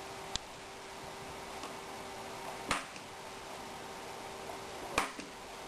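Sharp clicks of small laser-cut wooden boards being cut free from the kit's parts tree, three in all: a faint one just after the start, then louder ones a little before the middle and near the end.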